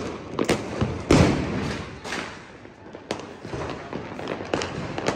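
Firecrackers going off: a series of bangs, the loudest about a second in and ringing out, with smaller pops scattered after it.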